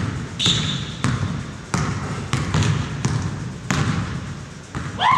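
Several basketballs being dribbled on a hardwood gym floor, irregular bounces about twice a second, echoing in the gym. A brief high sneaker squeak comes about half a second in, and a rising squeal right at the end.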